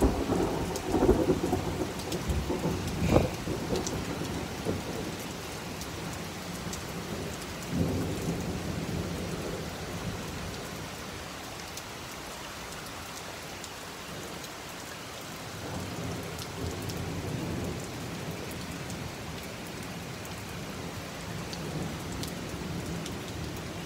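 Heavy rain falling steadily, with thunder rumbling through the first few seconds, a sharp peak about three seconds in, and another rumble about eight seconds in that fades away. A weaker rumble swells again later.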